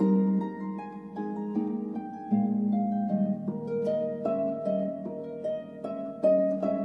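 Background music: a gentle melody of plucked-string notes, harp-like, each note starting crisply and ringing away, with new notes every half second or so.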